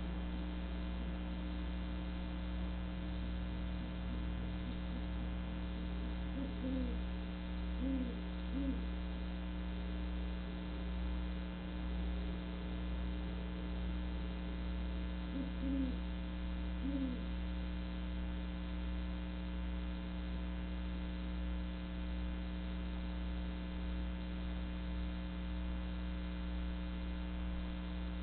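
A steady electrical hum throughout, with short, low great horned owl hoots coming in two small clusters, about seven and about sixteen seconds in.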